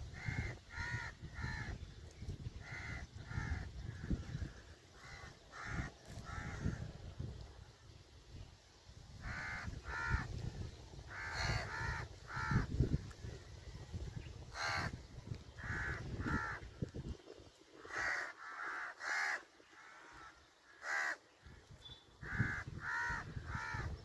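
Crows cawing repeatedly, in runs of two or three harsh caws, over a low rumble.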